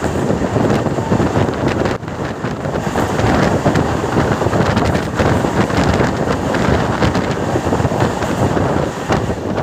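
Wind buffeting the microphone over the running noise of a moving passenger train, a steady loud rush with no horn.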